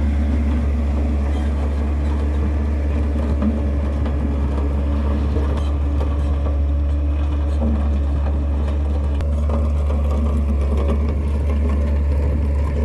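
Heavy road-construction machine's diesel engine running steadily, with a strong, even low hum.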